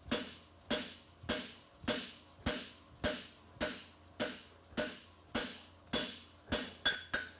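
Hand hammer striking a red-hot steel horseshoe on the anvil face in an even rhythm, a little under two blows a second, each blow ringing briefly, with a few quicker, lighter strikes near the end. This is the drawing down and flattening of a branch of a forged Swiss/French hind shoe.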